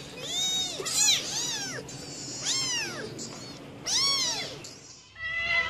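Kittens mewing: about five short, high-pitched mews, each rising and then falling in pitch. Near the end a different cat starts a longer, steadier cry.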